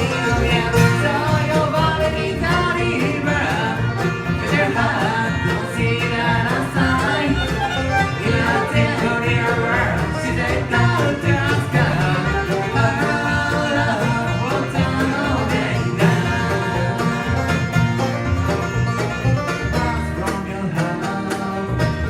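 Bluegrass band playing an instrumental break, with banjo, fiddle and guitar.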